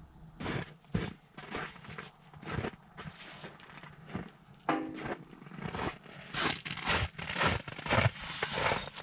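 Irregular scraping, knocking and crackling of handling on the ice, getting denser and louder in the second half, with a brief squeak about halfway through.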